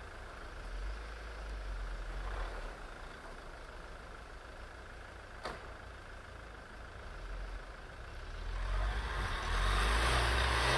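UAZ Patriot SUV engine running at low revs in deep snow, then revving hard from about eight seconds in as the vehicle pushes forward, tyres churning through the snow.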